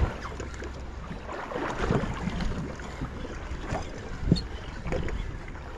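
Wind on the microphone and water moving around a small fishing boat's hull, a steady low rumble, with scattered knocks and clicks as a jigging reel is wound against a hooked fish. A sharp click comes about four seconds in.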